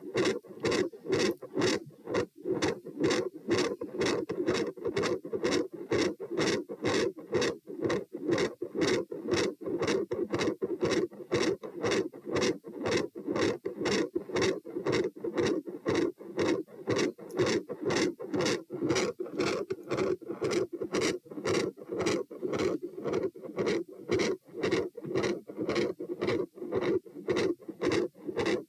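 Heartbeat heard through a stethoscope at the pulmonic (P) listening position: a steady, even rhythm of lub-dub heart sounds over a continuous hum. The recording is labelled as having a loud second heart sound (S2) and an intermittent machinery-like murmur.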